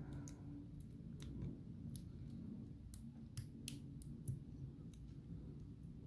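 Faint, scattered light clicks and ticks of a thin metal shim being worked into the body of an ASSA Ruko 2 padlock beside its shackle, metal catching on metal at irregular moments.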